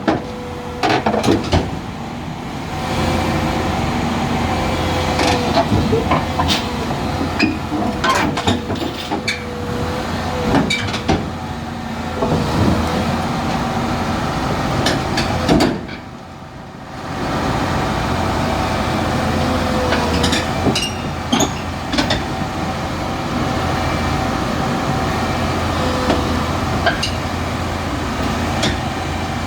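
Komatsu excavator's diesel engine running under load with a wavering hydraulic whine, as the machine is driven up onto a trailer, with repeated sharp metallic clanks and knocks. The sound drops away briefly a little past halfway, then picks up again.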